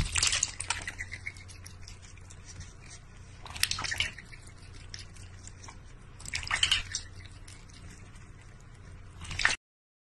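Cat pawing at water in a large stainless steel bowl: splashing and dripping in about four bursts, with quieter sloshing between them.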